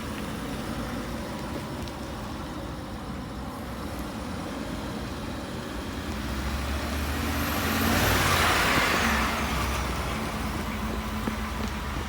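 Ford F-150 pickup with the 5.0 V8 driving: steady engine and road noise that swells louder with a rushing hiss for a couple of seconds midway, then eases back.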